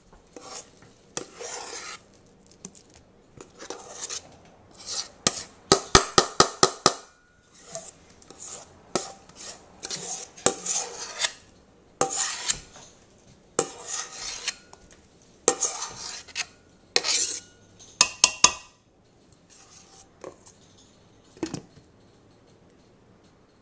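A metal spoon scooping thick mashed potatoes and scraping and clanking against stainless steel cookware, with irregular scrapes and knocks. About six seconds in comes a quick run of about seven sharp metal taps.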